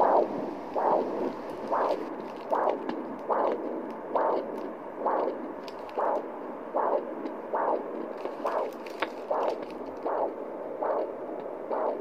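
Handheld fetal Doppler with a 2.5 MHz probe picking up the mother's own heartbeat: a rhythmic whooshing pulse from its speaker, about five beats every four seconds (the display reads 64–70 BPM), slower than a fetal heartbeat.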